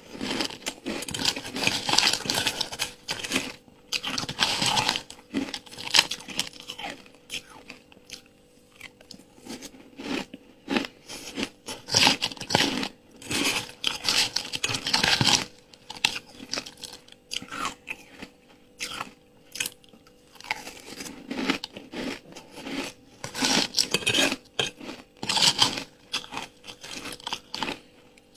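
Close-up crunching of ice being bitten and chewed, in bouts of rapid crackling bites separated by short pauses.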